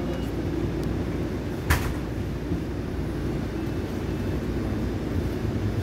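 Steady low rumble of a moving vehicle heard from inside, with one sharp knock a little under two seconds in.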